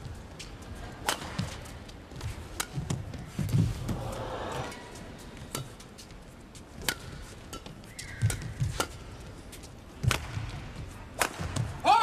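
Badminton rackets striking a shuttlecock in a singles rally: sharp cracks at irregular intervals, some harder than others like smashes. Shoes squeak on the court floor, most plainly near the end.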